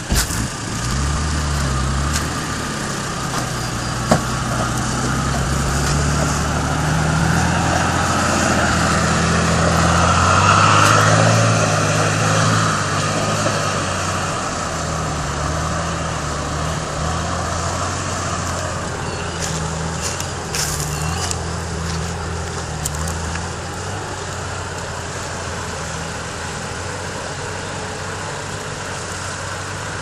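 Nissan Patrol GQ's engine running under load as it drives through a flowing creek, its note rising and falling with the throttle and loudest about ten to twelve seconds in, with water rushing and splashing around the vehicle. The engine fades out after about twenty-three seconds, leaving the steady rush of the creek.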